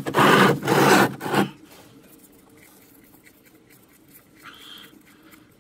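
Two brief scraping noises in the first second and a half as the front differential's fill plug is worked loose, then only faint handling sounds.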